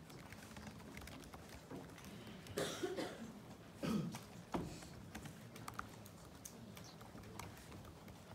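Laptop keyboard typing: a scatter of soft key clicks, with a few louder rustles and knocks a little before the middle.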